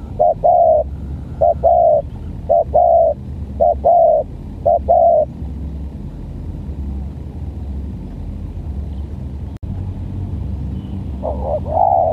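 Spotted dove (tekukur) cooing: five short-then-long coos, about one a second, then a pause of several seconds and more coos near the end. A steady low rumble lies underneath.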